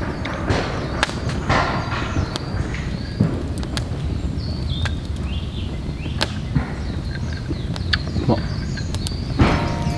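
Wood fire burning in a small camp grill: a steady rush of flames with frequent sharp crackles and pops. Birds chirp in the background, most clearly around the middle.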